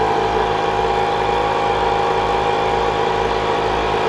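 A conventional, non-quiet air compressor running loud and steady, its motor and pump giving a whining hum. It drowns out the ultra-quiet California Air Tools 8010A compressor running alongside it.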